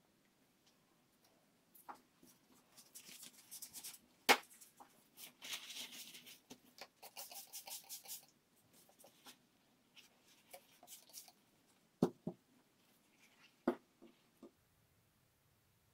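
Gloved hands handling and moistening a paper towel, with a bottle nearby: short bursts of soft rustling through the first half and a few sharp knocks, the loudest about four seconds in.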